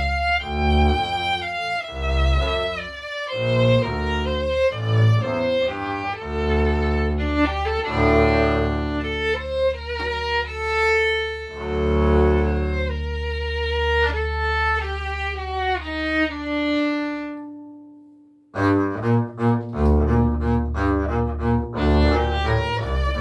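Violin and double bass duet: the violin plays the melody over a bowed and plucked double bass line. About 17 seconds in, the notes die away into a brief silence, then both instruments come back in abruptly.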